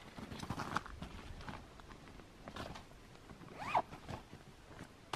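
A nylon stuff sack being handled: rustling and small clicks, with a short rising-and-falling squeak a little past halfway.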